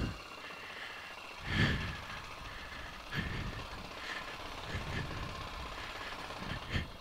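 Yamaha XT600E single-cylinder four-stroke engine pulling at low revs, with irregular throttle bursts. The strongest burst comes about one and a half seconds in, with smaller ones roughly every second after it.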